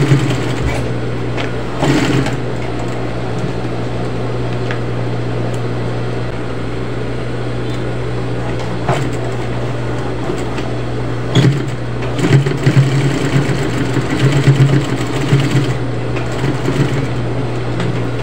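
Juki high-speed industrial lockstitch sewing machine stitching fabric. It is a steady low hum with louder spurts of sewing, most of them between about twelve and sixteen seconds in, and a few short clicks.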